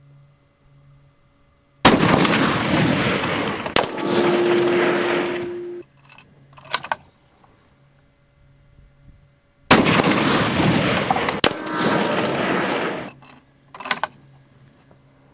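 Two shots from a McMillan Tactical .50 BMG sniper rifle, several seconds apart. Each is followed by a long rolling echo, and a second sharp crack about two seconds later: the round hitting the steel plates downrange.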